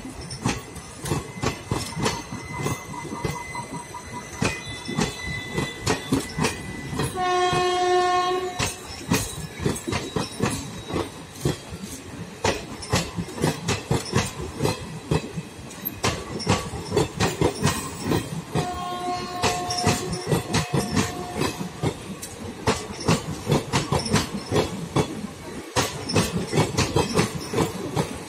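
Indian Railways express passenger coaches rolling past close by, their wheels clicking rhythmically over the rail joints. A train horn blows a long note about seven seconds in, the loudest moment, and a fainter horn sounds again around nineteen seconds in.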